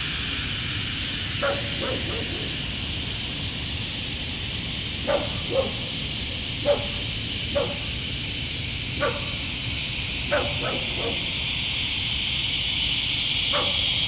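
A dog barking in short single barks, about nine of them at irregular intervals, over a steady, high evening insect chorus that grows a little louder near the end.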